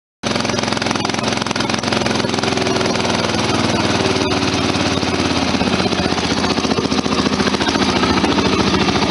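Riding lawn mower's small gasoline engine running steadily, with a fast even firing pulse.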